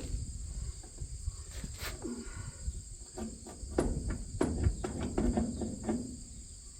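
Crickets chirring steadily in the background. About halfway in comes a run of knocks and clanks of metal as a heavy corn-head stalk roll is worked and levered into place.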